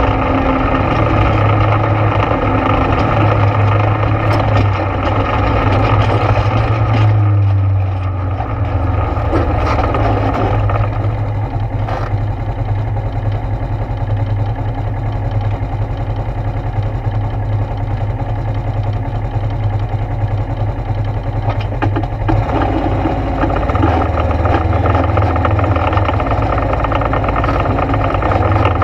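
ATV engine running while riding on a trail, with a steady low hum; it eases off about a quarter of the way through and picks up again toward the end.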